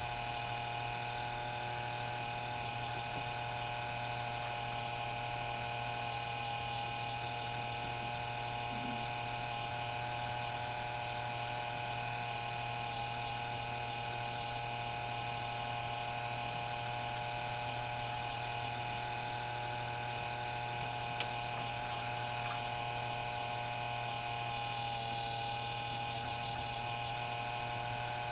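Model chairlift running: its small electric drive motor and the haul cable turning over the tower's sheave wheels make a steady whir over a constant low hum, with one faint click about two-thirds of the way through.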